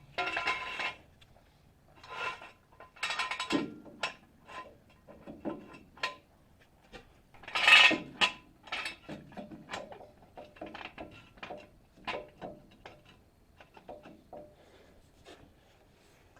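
Irregular clatter, scraping and clinking of hard objects being handled, some strikes with a brief metallic ring; the loudest clatter comes about eight seconds in.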